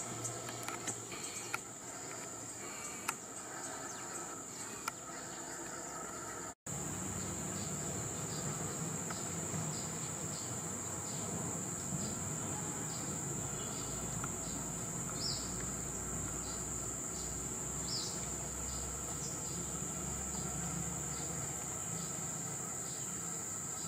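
Steady high-pitched drone of insects, with a few short high chirps over it; the sound cuts out for an instant about six and a half seconds in.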